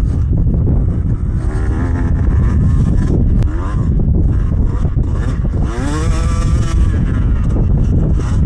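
Beta 200 RR dirt bike engine revving under riding load, its pitch climbing and dropping again and again with throttle and gear changes, with a strong climb about six seconds in.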